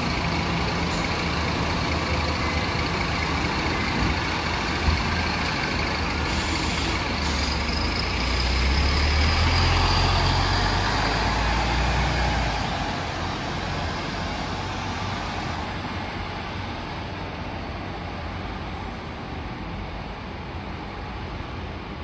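Single-deck city bus running at a standstill, with one short sharp sound about five seconds in, then pulling away: its engine rumble grows louder from about eight seconds in and fades steadily as it drives off.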